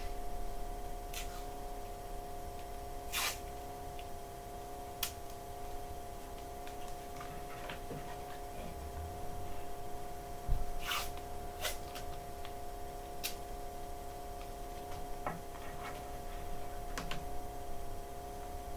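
A steady hum of several fixed tones in a small room, with scattered light clicks and knocks of things being handled or moved, the sharpest about three seconds in and again near the middle.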